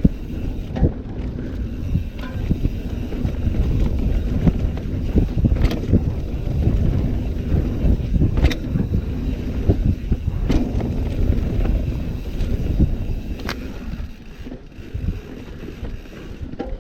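Downhill mountain bike riding over rough off-piste ground: a steady low rumble of tyres and wind on the microphone, broken by sharp knocks and clatters from the bike over bumps about five times.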